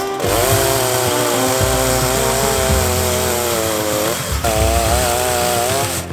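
Chainsaw cutting into a tree, its engine held at high revs under load. It drops briefly right at the start and again about four seconds in, then revs back up.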